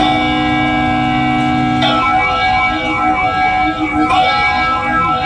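Electronic dance music: a held synthesizer chord for about two seconds, then a busier melodic line of quick, echoing notes.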